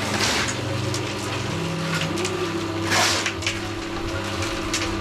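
Machine engine running steadily, its pitch stepping up about two seconds in, with two loud rushing, scraping bursts near the start and about three seconds in.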